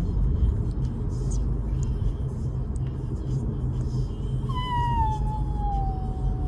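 Car interior with a steady low road rumble. Partway through, a Samoyed puppy gives one long whine that slides slowly down in pitch.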